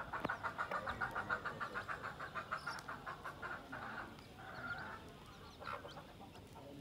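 Broody hen clucking in a rapid, even series of short notes, about six a second, the food call that draws her chicks to where she is scratching. The series stops about four seconds in, followed by one longer call and one short call, with faint chick peeps throughout.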